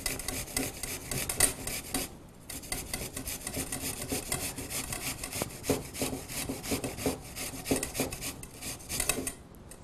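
An unpeeled apple being grated on a hand grater: a run of rasping strokes, with a short break about two seconds in.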